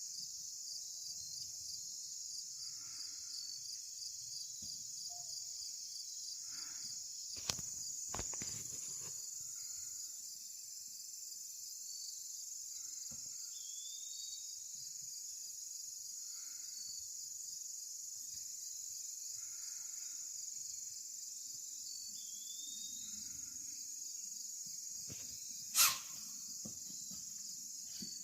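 Steady chirring of crickets and other insects, broken by a deer's sharp alarm blows: a noisy snort about a third of the way in, and a louder, very brief snort near the end.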